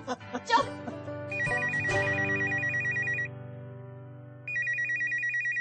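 Landline telephone ringing with a fast electronic warbling trill: one ring of about two seconds, a pause, then a second ring starting about four and a half seconds in.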